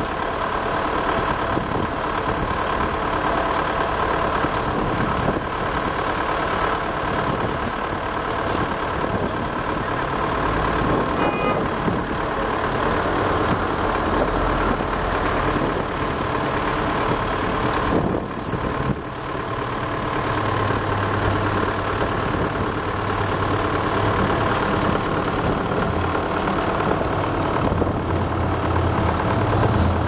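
Stationary car and truck engines idling, a steady mechanical hum. A deeper, stronger hum joins about two-thirds of the way through.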